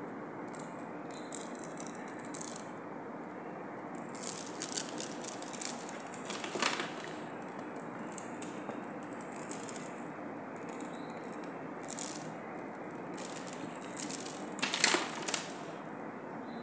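Strings of beads and pearl necklaces clicking and rattling against each other as they are handled and shifted on a tabletop. The clicks come in short, scattered bursts, loudest near the end, over a steady background hiss.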